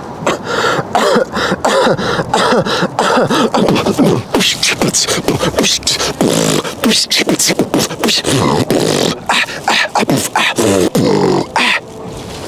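A man beatboxing: rapid vocal percussion of clicks, kicks and snares mixed with hummed, gliding bass and vocal lines. It stops about a second before the end.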